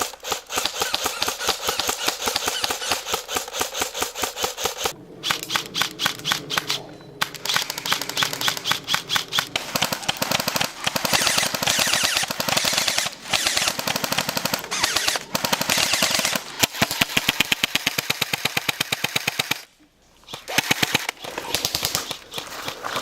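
Airsoft guns firing long, rapid full-auto strings, a fast steady rattle of shots with brief pauses and one clear break near the end.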